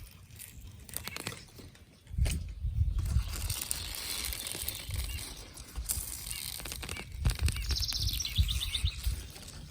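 Wild birds singing, with a rapid high trill about eight seconds in, over a low rumbling noise.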